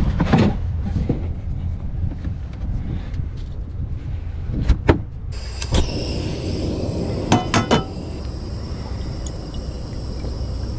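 Cooking gear being handled: a few sharp knocks, then several short metallic clinks as a frying pan is set on a small backpacking gas stove, over a steady low rumble.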